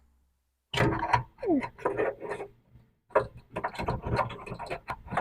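Fuel pump assembly being handled and fitted back together: a string of short knocks and clicks with rubbing and scraping of parts, and a brief falling squeak about one and a half seconds in.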